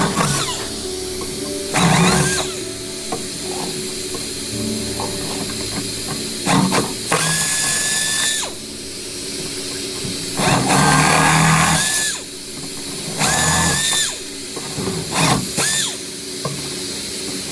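Power drill run in about six short bursts, each a whine that rises and then holds, drilling a ring of holes through a perforated sheet-metal panel.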